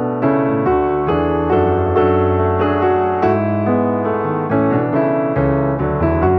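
Background piano music: a gentle melody of single notes, played at about two a second.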